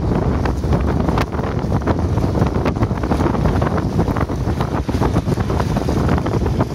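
Wind buffeting the microphone with a steady low rumble, over irregular splashing of a sled dog team and sled running through shallow meltwater lying on top of sea ice.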